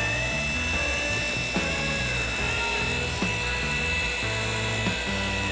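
Small handheld rotary polisher running at a steady high whine as its foam pad buffs a propeller blade, under background music with a light beat.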